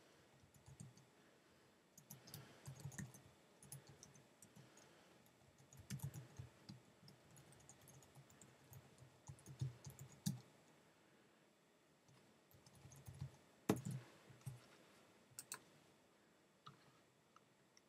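Faint clicking of computer keyboard keys, typed in short runs with pauses between them, with one sharper click about three-quarters of the way through.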